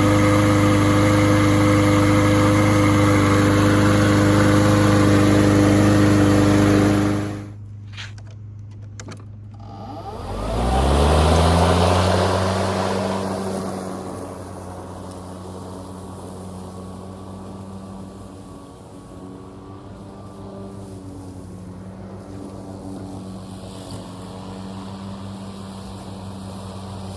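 A gas push mower's engine runs loud and steady, then cuts off suddenly about seven seconds in. After a quieter gap, a Greenworks 40V brushless cordless mower's motor spins up with a rising whine and settles into a much quieter steady hum.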